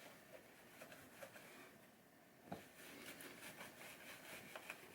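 Faint rubbing of a microfiber cloth buffing hazed wax off a wooden pinball playfield, with a few light ticks and one sharper tick about halfway through.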